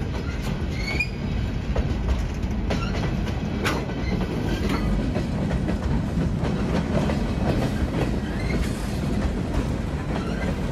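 Freight train rolling past at a steady pace: a continuous low rumble of wheels on rail with scattered sharp clicks and a few brief, faint wheel squeals.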